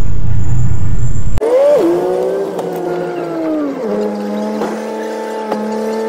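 Loud, low rumble of a bus engine that cuts off suddenly about a second and a half in. It gives way to a pitched, racing-car-like engine whine that rises briefly, sinks, then drops lower about four seconds in and holds steady.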